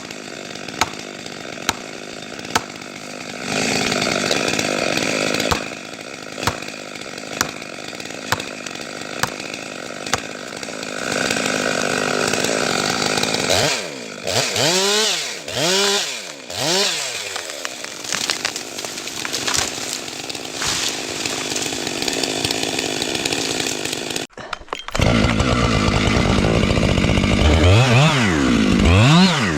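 Chainsaw running and cutting wood, with sharp knocks about once a second through the first ten seconds. Around the middle the engine is revved up and down three times; after an abrupt cut it runs louder, with two more revs near the end.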